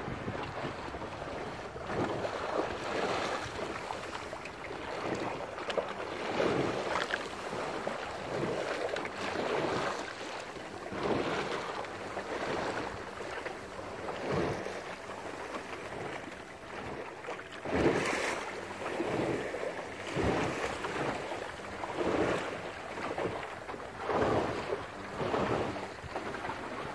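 Water rushing and slapping along the hull of a small open wooden sailing boat under sail, swelling every second or two as it meets the waves, with wind buffeting the microphone. One sharper, louder slap comes about two-thirds of the way through.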